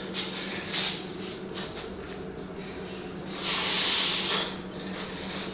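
A lifter's forceful hissing exhale, about a second long, during a rep of straight-arm cable rope pulldowns, with fainter breaths before it, over a steady low hum.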